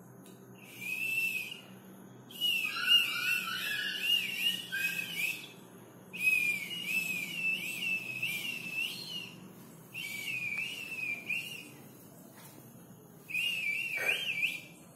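High whistling in five separate phrases, each wavering up and down around a single pitch, with a short falling tone near the end.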